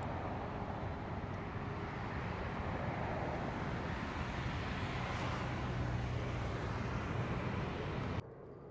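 Steady road traffic noise from passing vehicles, which cuts off suddenly near the end.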